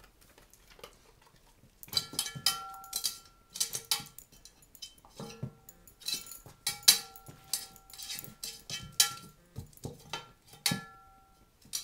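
A dog's paws and claws knocking and scraping in a metal roasting pan, the pan ringing briefly after each knock. The clanks begin about two seconds in and come in irregular clusters.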